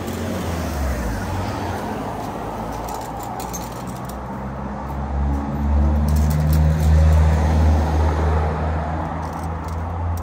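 A motor vehicle's engine running close by in street traffic, a low rumble that swells to its loudest about six to eight seconds in and then eases off as the vehicle passes.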